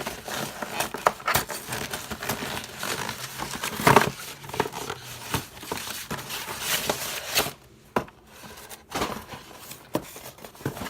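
Packaging crinkling and rustling as a box is opened and its contents unwrapped, with scattered clicks and knocks and one louder knock about four seconds in.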